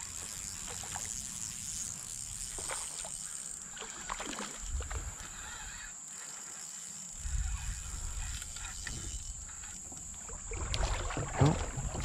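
Faint water sloshing and scattered small knocks around a fishing kayak as it is handled, growing busier near the end as a landing net goes into the water.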